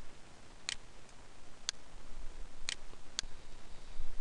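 Four sharp computer mouse clicks, about a second apart at first and the last two close together.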